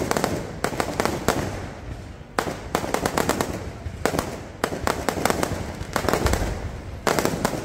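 Fireworks going off in quick clusters of sharp bangs and crackles, a fresh volley about every second.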